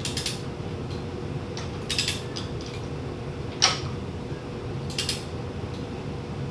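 Torque wrench and open-end wrench clinking and ratcheting on the camshaft's VANOS bolt of a BMW N62 V8 as the bolt is torqued, in short metallic rattles every second or two. A single sharp click about three and a half seconds in is the loudest sound. A steady low hum runs underneath.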